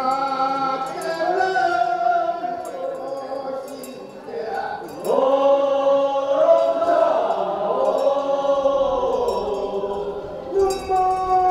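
Korean sangyeo sori funeral bier song: a group of voices chanting in long, drawn-out, sliding phrases, a new and louder phrase starting about five seconds in. A handbell jingles along lightly.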